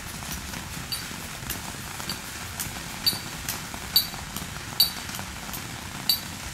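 Firework going off in a series of short sharp pops, about two a second, a few of them louder than the rest.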